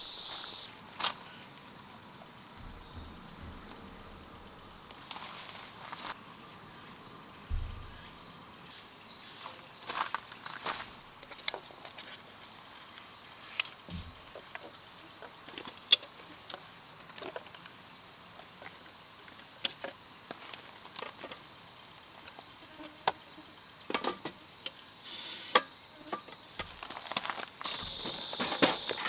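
Steady high-pitched buzzing of summer insects, which shifts in pitch and strength abruptly a few times, with scattered light clicks and knocks over it.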